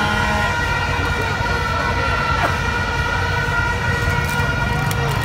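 Dense crowd noise: many voices mixed with several overlapping, steady high tones that start and stop at different pitches.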